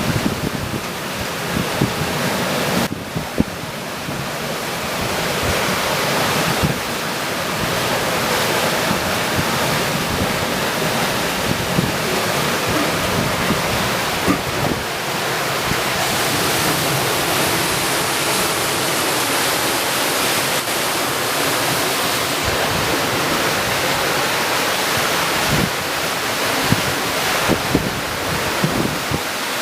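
Water rushing past the hulls of a Maverick 400 sailing catamaran under sail, mixed with wind buffeting the microphone in irregular low gusts.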